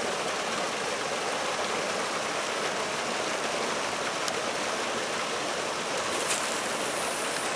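Steady rushing, water-like hiss with no break, and a brief higher hiss about six seconds in.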